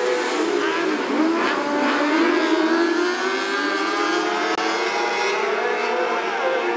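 Several wingless 600cc micro sprint cars racing together, their motorcycle engines running at high revs. The overlapping engine notes rise and fall as the cars accelerate and lift.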